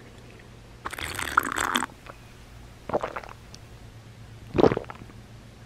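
A person drinking water from a lidded tumbler: a noisy sip lasting about a second, a softer sound around the three-second mark, then a short, louder swallow near the end.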